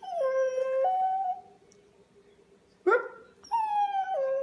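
A small terrier howling along, "singing" in long pitched calls: one that dips and rises again in the first second and a half, a short rising yelp about three seconds in, and another long call that steps down in pitch near the end.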